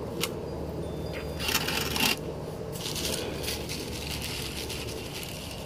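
Small black pebbles clinking and rattling as they are sprinkled and pressed into the top of a ceramic mug planter, in a few short bursts.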